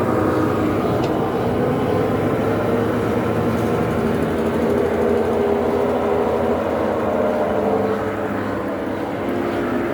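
Washing machine drum turning with a loud, steady rumble and droning hum. This is the noise of a worn drum bearing.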